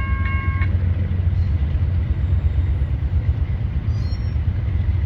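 Steady low rumble of a moving vehicle, with a fast, pulsing electronic ding that stops under a second in.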